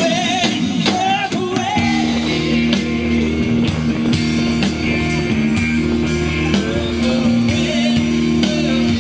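Live rock band playing, with electric bass, electric guitar and drums. About two seconds in, steady held low notes come in under the band.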